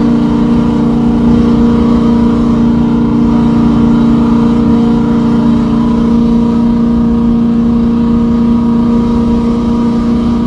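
Ford F-350 Super Duty's Triton gasoline engine held against the rev limiter, a loud, continuous high-revving drone that stays at one pitch throughout.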